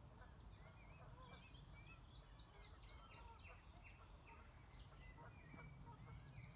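Faint songbirds chirping and calling, with a quick run of short falling notes near the middle, over a steady low rumble.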